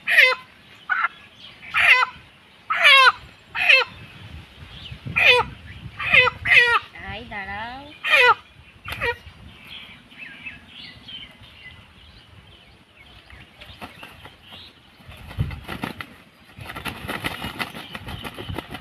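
A white chicken squawking in distress while held down, a string of sharp, falling cries over the first nine seconds or so. Near the end come the rustle and beat of its wings flapping.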